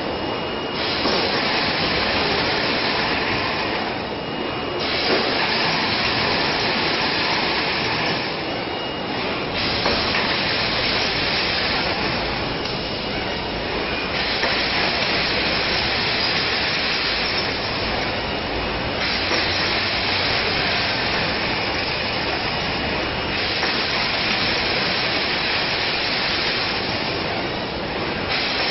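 Continuous loud hissing, rushing noise with no clear tone. Its upper part switches between stronger and weaker every few seconds.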